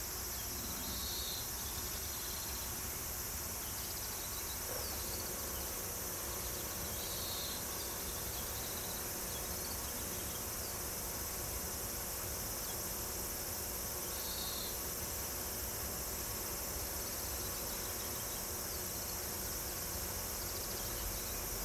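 Steady insect chorus, a continuous high-pitched buzzing with no break, with a faint short chirp recurring about every seven seconds.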